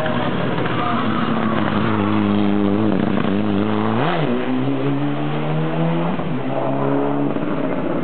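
Mitsubishi Lancer Evolution IX rally car with antilag, its turbocharged four-cylinder engine pulling hard uphill. The engine note drops sharply and jumps briefly about four seconds in as the car takes the hairpin, then climbs again, with a gear change about six seconds in.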